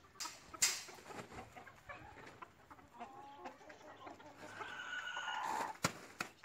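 Chickens clucking in short, scattered calls, with a longer drawn-out call near the end. A few sharp clicks mix in, the loudest a little over half a second in.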